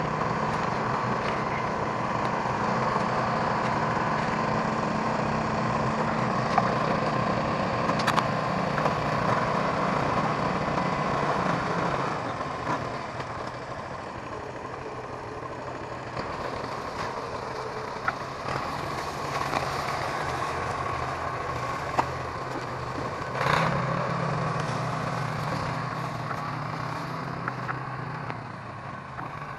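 Massey 20 tractor engine running steadily while working a home-made winch to drag logs. It eases a little about twelve seconds in and swells briefly later on, with a few light clicks along the way.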